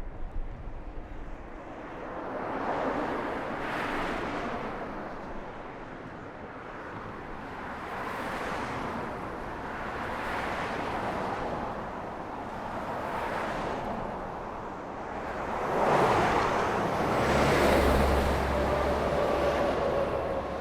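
Road traffic passing by one vehicle after another, each pass swelling and fading in a wash of tyre and engine noise. About sixteen seconds in comes the loudest pass, a heavier vehicle with a deep low rumble and a faint steady engine tone.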